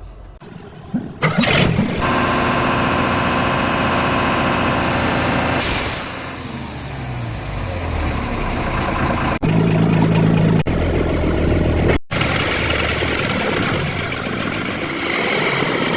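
Truck engine starting and running, with a sharp burst of hissing air about six seconds in as the engine speed drops.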